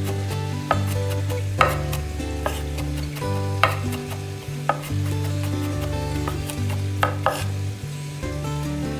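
A spatula stirring food frying in a pan, with sharp clicks of the utensil striking the pan about eight times, over steady background music.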